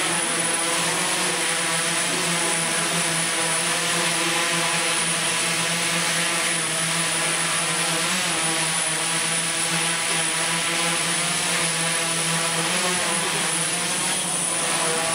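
Large six-rotor camera drone in flight, its propellers giving a steady many-toned hum whose pitches drift slightly up and down as the pilot holds and shifts its position.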